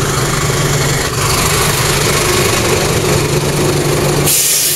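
A bus engine running close by: a steady low hum under a loud, even rumble. Near the end the hum drops away and a bright hiss takes over.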